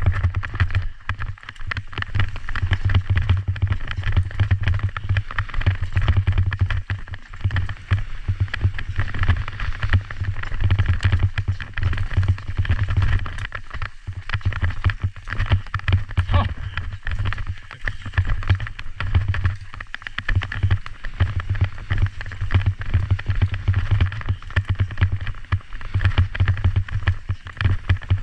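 A Kona Process 153 mountain bike ridden fast downhill: tyres rolling over dirt and roots with constant small knocks and rattles from the bike, under a steady low wind rumble on the GoPro's microphone.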